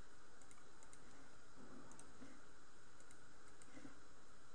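Scattered light clicks of a computer mouse and keyboard, irregular at about one or two a second, over a steady low hiss.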